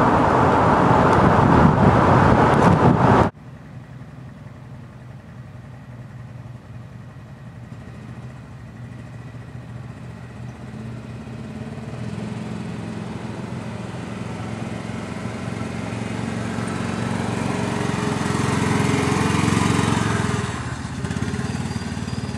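Loud wind and road noise from a moving vehicle, which cuts off suddenly about three seconds in. Then a Honda ATV engine running at low speed, growing steadily louder as it approaches and easing off a little near the end.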